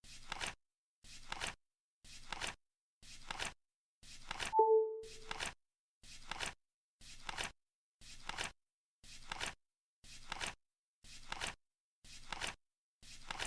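Flip clock timer ticking over, a flap flipping down once a second in an even rhythm. About four and a half seconds in, a short, louder tone sounds once over the flips.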